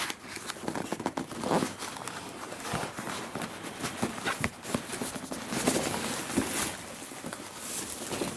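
Cardboard box and packaging being handled and opened by hand: irregular rustling and crinkling with many small knocks and clicks.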